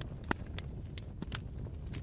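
Campfire burning, a steady low rumble of flames with irregular sharp crackles and pops, one louder pop about a third of a second in.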